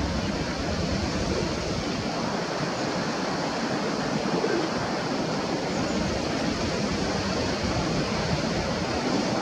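Steady outdoor rushing noise, with wind buffeting the microphone in an uneven low rumble.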